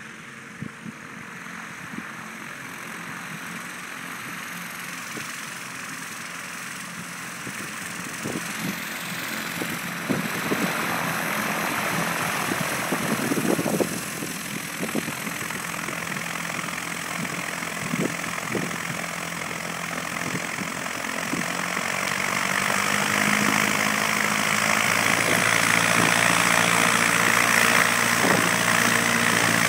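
Single-engine piston light aircraft, a Piper Cherokee, taxiing across grass at low power, its engine growing steadily louder as it approaches. A few low thumps come partway through.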